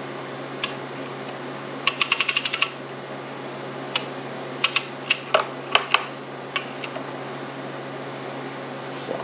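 Manual Cannon downrigger's spool ratchet and handle clicking as it is worked: a quick run of about eight clicks, then a handful of scattered clicks and knocks, over a steady low hum.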